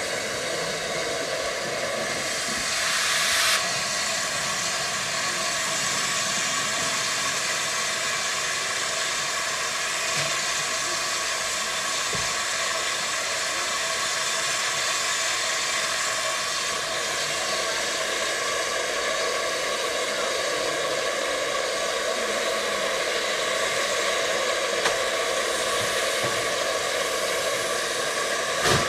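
Steam locomotive Metropolitan Railway E class tank No. 1 hissing steam steadily as it moves slowly, with a louder spurt of hissing about three seconds in and a sharp click near the end.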